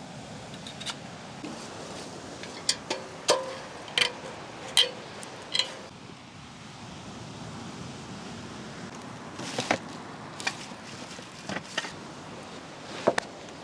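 Camp gear being handled: a series of sharp clicks and knocks over a steady background hiss. A cluster of them a few seconds in rings briefly, like light clinks.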